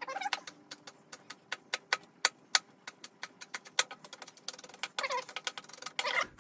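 Chef's knife chopping a red chili on a wooden cutting board: quick, irregular taps of the blade on the board, about three a second. A few brief wavering high calls come in between, just after the start, about five seconds in and again near the end.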